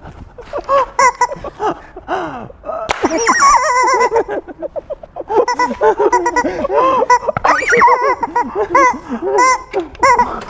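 People laughing in many short, high-pitched, squealing bursts, the pitch rising and falling within each burst, as they fail to keep their mouths shut and hold the laughter in.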